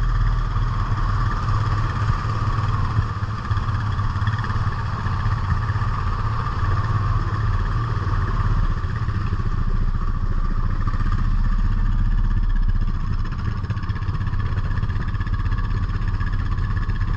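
ATV engine running at a steady pace, a continuous, even drone.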